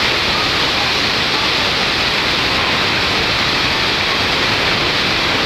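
Niagara Falls: a loud, steady rush of falling water, an even hiss with no breaks.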